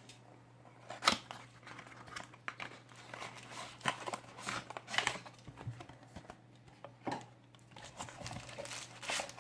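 Cardboard product box being opened and its packaging handled: scattered rustling, scraping and light clicks, with sharper knocks about a second in and again around five and seven seconds.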